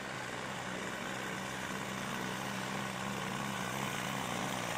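Diesel farm tractor engine working hard at full throttle, pulling a weight-transfer sled, a steady drone that creeps slightly louder.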